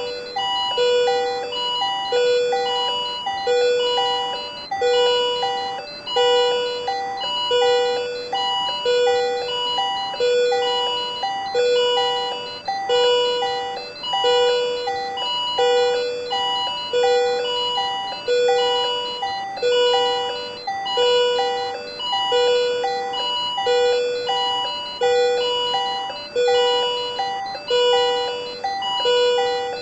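Patient monitor alarm sounding for supraventricular tachycardia: a short pattern of electronic tones, repeating evenly about once every second and a half.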